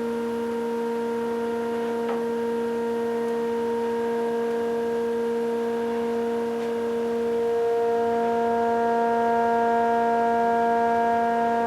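A steady, unchanging pitched drone, one held tone with overtones, growing slightly louder about two-thirds of the way through.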